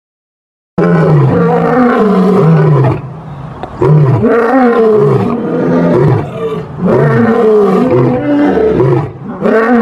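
Lion roaring in about four long calls that rise and fall in pitch, with short breaks between them, starting about a second in.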